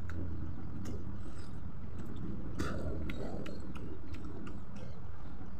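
A person chewing a mouthful of pork and rice close to the microphone, with scattered sharp wet clicks from the mouth; the loudest click comes about two and a half seconds in.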